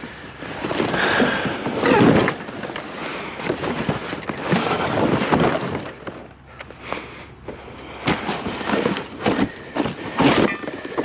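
Scrap being handled and shifted by hand: a run of rustling, scraping and knocking with repeated thumps, and footsteps.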